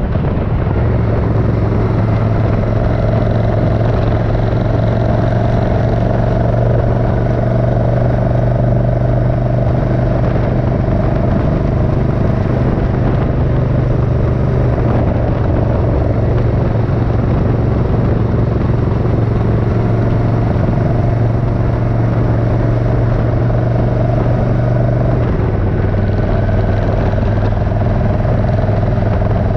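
Suzuki Intruder 1400's air-cooled V-twin engine running at a steady cruise while riding, its note dropping a little about 25 seconds in.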